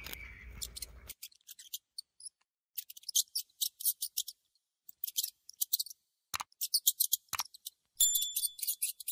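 Bursts of quick, soft, high-pitched clicking from a hamster nibbling food, separated by near-silent gaps, with two sharper clicks in the middle. A short electronic chime comes in about eight seconds in.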